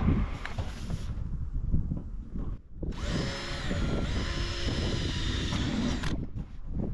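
Makita cordless drill driving a roofing screw through the corrugated steel roof sheet. It runs with a steady high whine for about three seconds from about halfway in, with a brief dip partway through, then stops.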